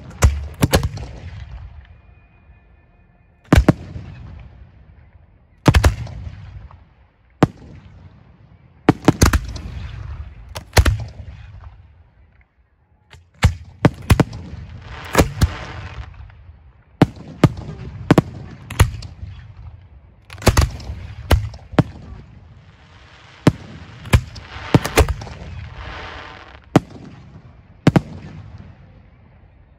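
Professional display fireworks fired from racks of mortar tubes: sharp bangs of shells launching and bursting one after another, at irregular intervals of a second or two and sometimes in quick clusters, each leaving a fading rumble.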